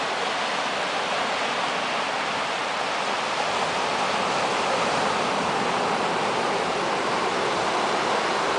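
Ocean surf breaking and washing onto a rocky beach: a steady, even rush of noise that swells slightly midway.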